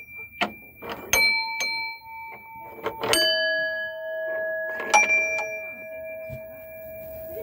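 Dome bells on a playground music panel, struck by note-shaped lever hammers: three strikes about two seconds apart, each ringing on for several seconds so the notes overlap.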